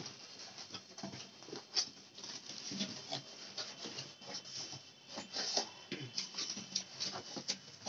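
Corrugated cardboard box flaps being pulled open and handled, with irregular scraping rubs and small knocks.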